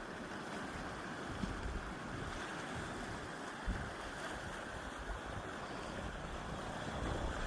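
Steady rushing of ocean surf with wind buffeting the microphone. There are a couple of brief low bumps, about a second and a half in and again near four seconds.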